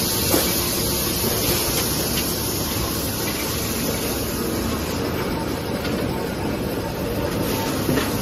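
Kitchen towel paper converting line running: a steady mechanical rumble and hiss from its rollers and drives, with a light knock just after the start and another near the end.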